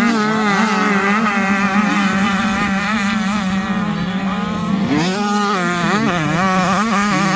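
85cc two-stroke motocross bikes racing through a corner, engines revving up and down as they shift and brake. About five seconds in, a nearer bike accelerates hard with a sharply rising rev.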